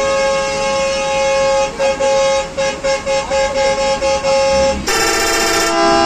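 Pakistani bus pressure horn (air horn) sounding a loud multi-tone chord: one long blast, then a quick run of short toots about three a second. Near the end, a burst of hiss as it switches to a lower-pitched horn chord.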